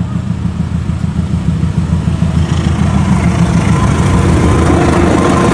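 Diesel engine of a CC 201 diesel-electric locomotive running, its low rumble growing steadily louder, with a faint steady whine joining near the end.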